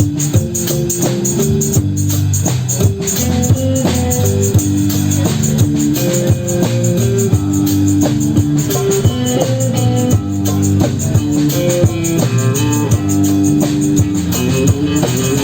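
Live band jam music: a melodic line of short, quick notes over a steady, dense percussion beat.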